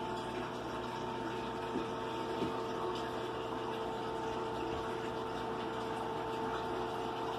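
Aquarium filter pump running: a steady watery hiss with a constant hum. Two faint knocks come about two seconds in.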